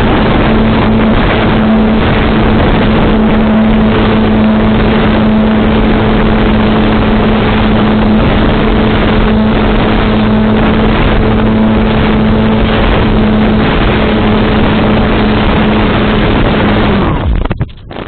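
Volantex Phoenix S sailplane's electric motor and propeller running at steady power, a constant hum under loud wind rush, cutting off abruptly near the end as the motor is switched off for gliding.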